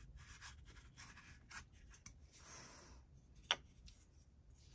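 Faint wood-on-wood rubbing and scraping as a wooden finger (box) joint is handled and its boards slid apart, with one small sharp knock about three and a half seconds in.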